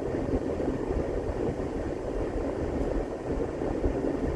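Steady low rumble of a car being driven, heard inside the cabin: road and engine noise.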